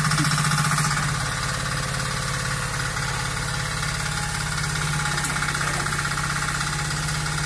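Small engine of a 0.8-tonne mini excavator running steadily as the machine is operated, a little louder for about the first second, then settling to an even note.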